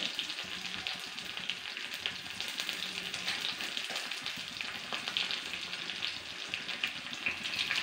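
Sliced shallots and dried red chillies sizzling steadily in hot oil, with small scattered crackles, as they fry until they brown.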